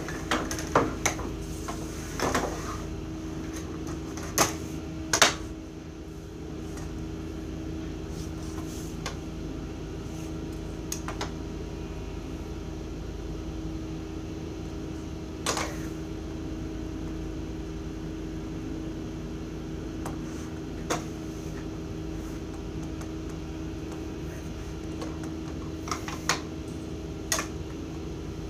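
Drafting rulers and set-square triangles being picked up and set down on a paper-covered drawing table: short sharp clicks and knocks, several in the first few seconds, then one every few seconds, over a steady machine hum in the room.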